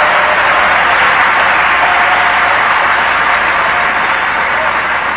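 A large audience applauding, a dense, steady clatter of many hands clapping that eases slightly near the end.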